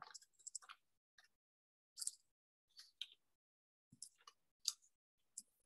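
Sheet of paper being folded and creased into a paper airplane's wings: faint, brief crackles and rustles at scattered moments, with near silence between.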